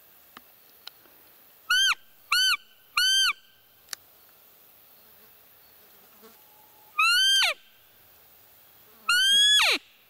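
Roe deer call (fiep call) blown by hand: three short squeaks in quick succession, each rising then falling in pitch, then after a pause two longer squeaks, the last ending in a long falling slide. It imitates a roe doe's squeak to lure a rutting buck.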